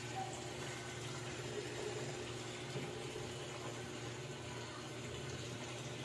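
Water pouring from the inlet into the tub of a Samsung top-load washing machine as it fills, a steady rushing splash.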